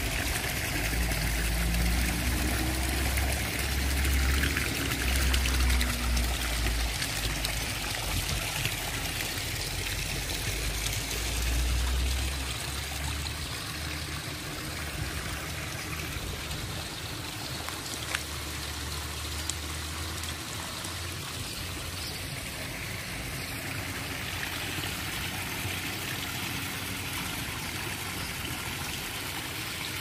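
Water pouring steadily from metal spouts of a public spring into a stone trough, a constant splashing hiss. A low rumble runs under it for the first dozen seconds, then fades.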